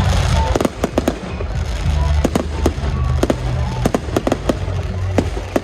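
Fireworks going off in quick, irregular succession, a string of sharp bangs and cracks, over music with a steady heavy bass.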